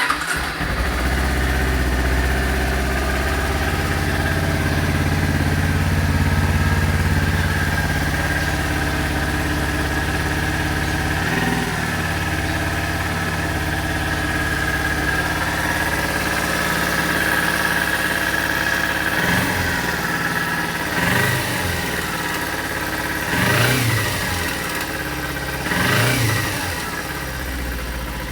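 A 2012 Kawasaki Ninja 250's parallel-twin engine catches from a cold start and idles steadily. Near the end the throttle is blipped four times, each a quick rise and fall in revs. The owner reports an abnormal noise that follows the throttle blips.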